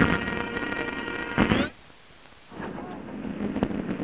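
Band music with held notes and drum beats on an old optical film soundtrack, breaking off suddenly about a second and a half in with a short upward slide. After a brief stretch of faint hiss, a crackly noise full of sharp clicks and pops comes in.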